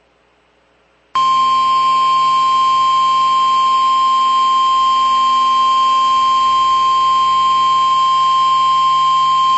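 Weather-radio emergency alert attention tone: a single loud, steady tone just above 1 kHz that starts abruptly about a second in and is held without change. It signals that an emergency warning broadcast is about to follow.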